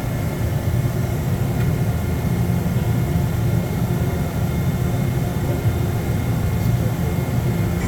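Steady low machine hum of a Mazak Integrex i-150 CNC lathe running between moves, with faint steady whining tones above the rumble.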